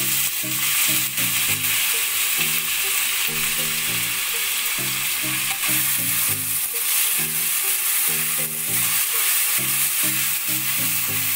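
Chopped onions sizzling as they fry in hot ghee in a kadai, stirred with a silicone spatula. The hiss of the frying is steady.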